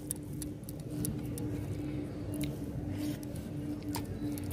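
Fingers mixing rice and hilsa mustard curry on a clay plate: faint ticks and soft squishing. A steady low hum sits underneath.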